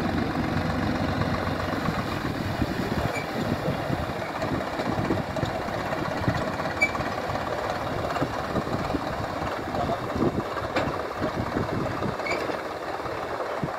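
Tractor's diesel engine running steadily as it hauls a trailer.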